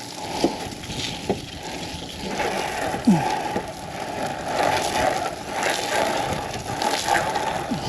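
Water from a garden hose nozzle on its jet setting spraying against a truck, a steady hiss with uneven spattering; the pressure is fairly low.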